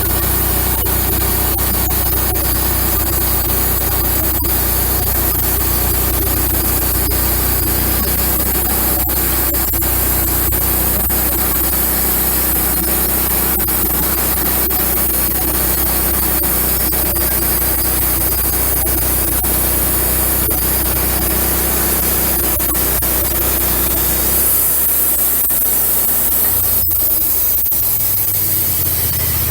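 Wood-Mizer LX150 bandsaw mill running, its engine humming steadily under a loud, even hiss of the band blade sawing through an oak log. About 24 seconds in, the engine's low note changes.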